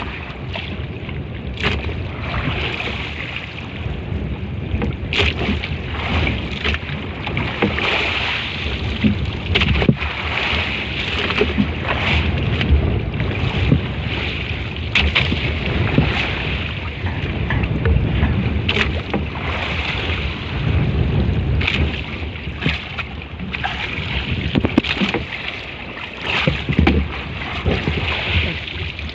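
Small boat under way at sea: steady rushing noise of wind on the microphone and water against the hull, with scattered short knocks.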